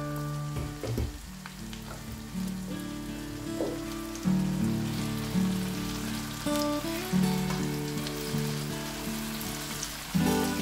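Background music with a melody and bass line, over the sizzle of onions, tomatoes, peppers and canned dace frying in sauce in a pan while a spatula stirs them.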